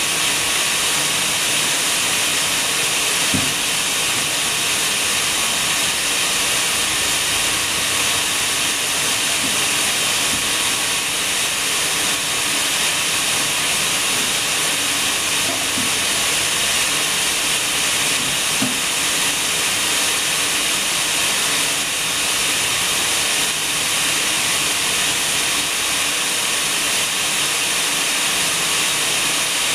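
A steady, loud hiss with a few faint knocks.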